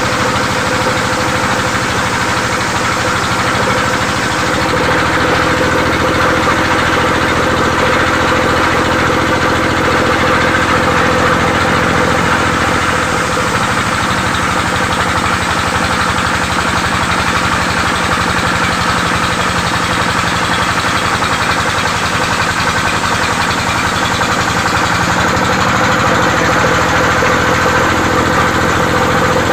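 Engine of a power saw running steadily at an even speed, its pitch shifting slightly a few times.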